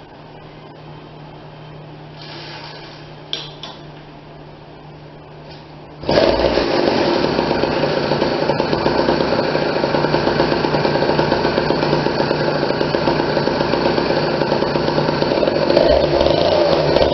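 Small two-stroke motorized-bicycle engine on its first start-up, running on a rich break-in fuel mix. It runs at a steady low idle, then about six seconds in it suddenly opens up to a loud, fast, buzzing run that holds to the end.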